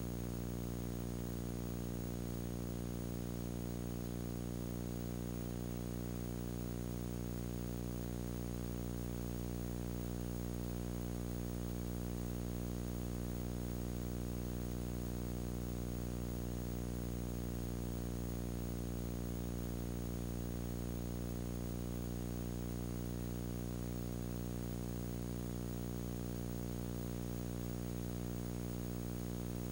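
A steady electrical hum, a stack of low tones that never changes, with a faint even hiss over it.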